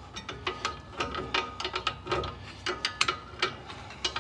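Parking brake star adjuster (spur-gear adjuster wheel) on a Nissan Titan's drum-in-hat rear brake, turned by hand so that it ratchets over its detent spring in a run of uneven clicks, about three or four a second, some with a light metallic ring. Turning it expands the parking brake shoes to take up their clearance.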